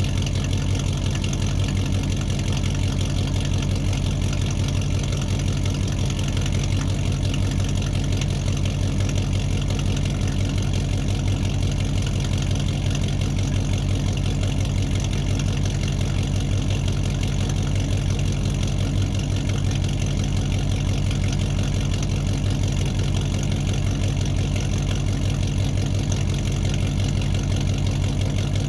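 Engine idling steadily at a constant speed, a low even running sound without change.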